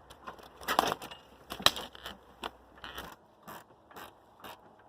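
Metal hand tools clinking and rattling as they are handled and picked through: a string of light clicks and knocks, with two louder rattling scrapes about one and one-and-a-half seconds in.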